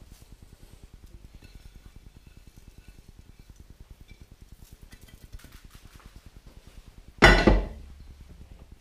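Faint patter of a coarse spice rub of cracked black pepper, coriander and mustard seed poured from a glass dish onto the meat. About seven seconds in, a short, loud glass clink and clatter as the glass dish is set down.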